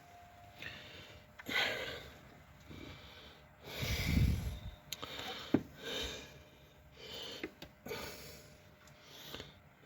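A person's breathing: short, noisy puffs, the loudest about four seconds in, with a couple of sharp clicks of parts or tools being handled.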